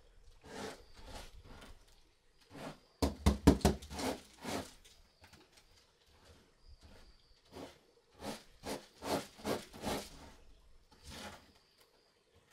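A hand scraping and brushing damp red-dyed sticky rice off a woven tray, in irregular rustling strokes, with busier, louder bursts of scraping about three seconds in and again around nine seconds.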